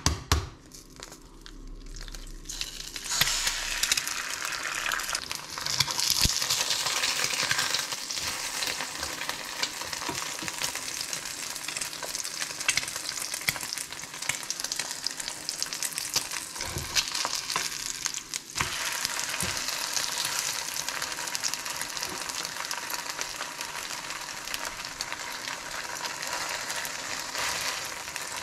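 An egg frying in hot oil in a frying pan: a steady sizzle that starts about three seconds in and carries on, dipping briefly about two-thirds of the way through. A sharp knock sounds at the very start.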